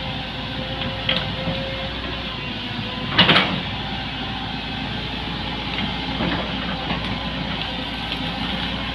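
Excavator engine running steadily, with a sharp clank about three seconds in and a couple of lighter knocks around it.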